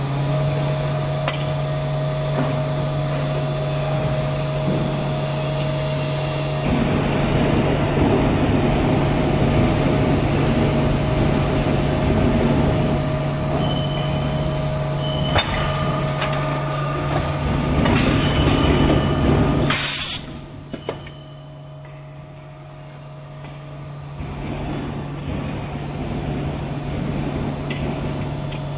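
Extrusion blow molding machine running through a molding cycle: a steady low hum with high whining tones under a rushing noise that swells to a loud hiss, then cuts off abruptly about two-thirds of the way through, after which the running builds up again.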